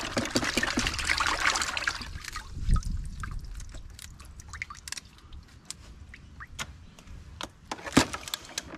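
Cooked blue swimmer crabs being washed in a tub of cold salt water: a continuous splashing and trickling wash for the first couple of seconds, then scattered drips, small splashes and clicks as the crabs are lifted and handled.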